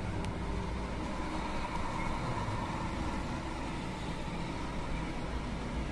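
Helicopter flying past at a distance, a steady drone.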